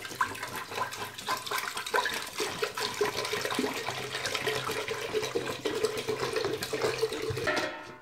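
Water pouring into the stainless steel base of a couscoussier, filling it for steaming: a steady splashing that stops sharply shortly before the end.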